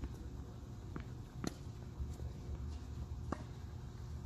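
A few short, sharp knocks of a tennis ball on the hard court, a clear one about a second and a half in and another a little after three seconds, over a steady low rumble.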